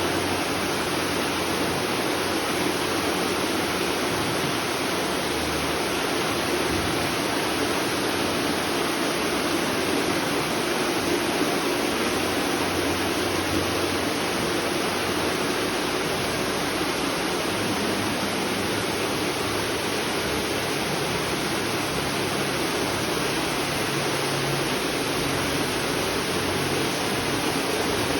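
Steady rush of running spring water, even and unbroken.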